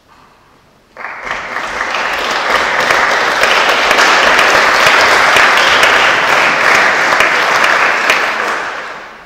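Audience applauding a performer's entrance: the clapping starts abruptly about a second in, swells, and dies away near the end.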